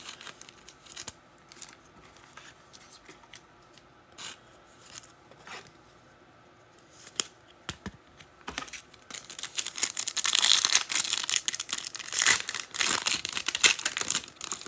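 Foil trading-card pack being torn open and its wrapper crinkled, loudest from about two-thirds of the way in, after several seconds of light scattered clicks of cards being handled.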